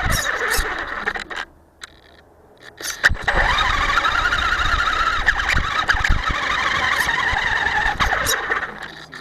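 Electric RC monster truck's motor and drivetrain whining high as it drives. The whine cuts out for over a second near the start, rises again as it speeds back up, holds steady, and eases off near the end, with occasional knocks from bumps.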